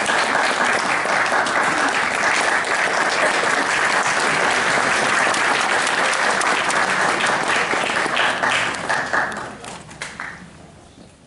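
Audience applauding, a dense patter of many hands clapping that thins out and dies away about ten seconds in.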